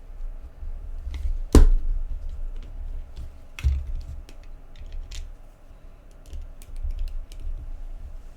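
Small clicks and taps from handling a lightsaber core during reassembly. A sharp knock comes about one and a half seconds in and a second about two seconds later, over a low rumble.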